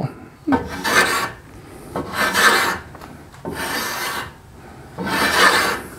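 Stanley 6-inch block plane taking strokes along the edge of a laminated wooden paddle shaft, shaving off wood and epoxy glue line: four rasping cuts, each under a second, about a second and a half apart, the third one softer.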